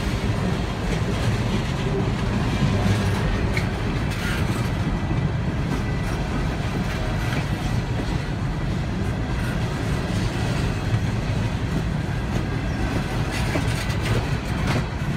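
Empty Norfolk Southern coal cars rolling past slowly: a steady low rumble with the wheels clacking over the rail joints and a few sharper clanks.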